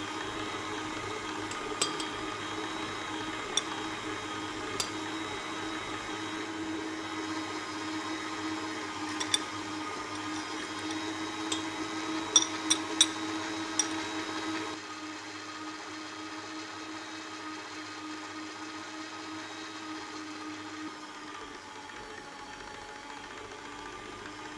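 Electric stand mixer's motor running steadily as its dough hook kneads stiff bread dough in a stainless steel bowl, with scattered sharp clicks, most of them in the first half. The hum becomes quieter a little past halfway through.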